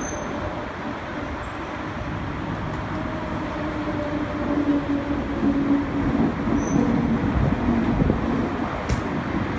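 Detroit People Mover train (UTDC ICTS Mark I, driven by a linear induction motor on steel rails) approaching on the elevated track and slowing into the station. Its rolling noise and a low hum grow louder about halfway through, and the hum slips lower in pitch near the end as it slows.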